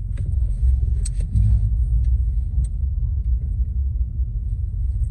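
Steady low rumble of a car's cabin while it is being driven, the road and engine drone heard from inside. A couple of sharp clicks come about a second in and again past two and a half seconds.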